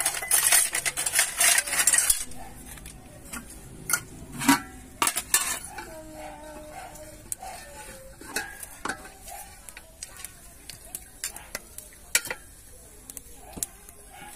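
A metal ladle stirring and scraping in a metal pot of curry and clinking against steel bowls and plates as the curry is served. A dense clatter fills the first two seconds, then scattered sharp clinks follow.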